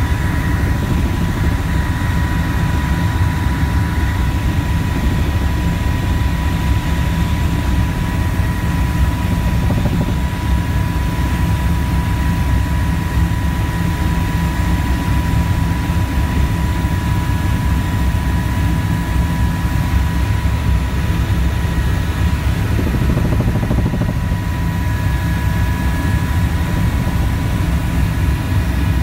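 Helicopter engine and rotor heard from on board: a steady, loud drone with a constant high whine over it.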